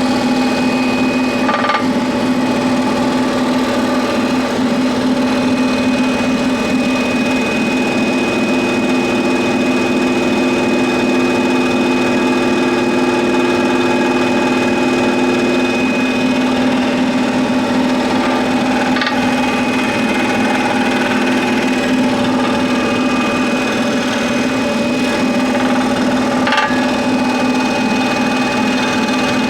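Scroll saw running steadily, its reciprocating blade cutting through 40 mm thick pine, with a constant mechanical hum and a few faint clicks.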